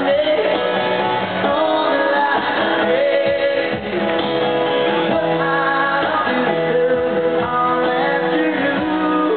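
Live music: a man singing into a microphone while strumming an acoustic guitar.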